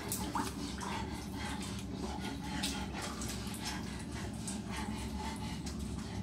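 Soft dog sounds from a wet Alaskan Malamute: faint short sounds at irregular intervals over a steady low background.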